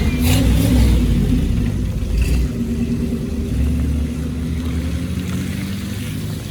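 Car engines running as parade cars drive slowly past, the sound gradually fading.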